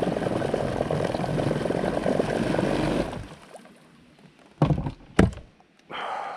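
A steady rushing noise that cuts off suddenly about three seconds in, followed by two loud knocks on the boat about half a second apart.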